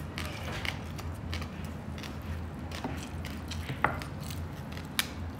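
Close-miked eating sounds: chewing with small wet mouth clicks and the crackle of crispy roast-pig (lechon) skin being broken by hand, with a couple of sharper crackles about four and five seconds in. A steady low hum lies underneath.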